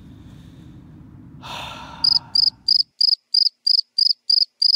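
A digital alarm clock going off: high-pitched electronic beeps repeating about three times a second, starting about two seconds in. Just before it, a short whoosh.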